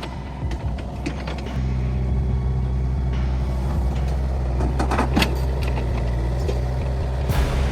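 A heavy vehicle's engine runs steadily and gets louder about a second and a half in, with a few knocks and rattles over it.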